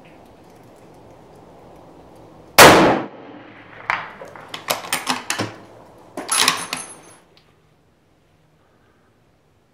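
A single shot from a 9.3x62 Remington 700 bolt-action rifle about two and a half seconds in, followed by a run of metallic clicks and clanks as the bolt is worked. A few bright ringing metal clinks follow near the end, and then the sound cuts to silence.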